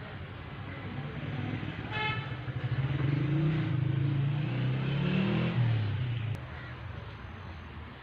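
A motor vehicle's engine passing close by, building up over a few seconds and dropping away sharply about six seconds in. A short horn toot comes about two seconds in.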